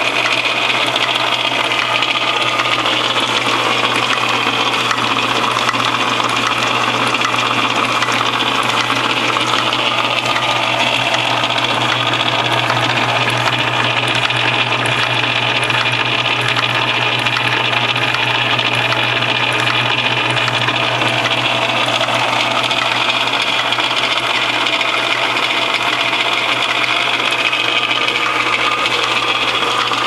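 West Capper bottle-cap crimping machine running: a steady low motor hum under a constant loud hiss.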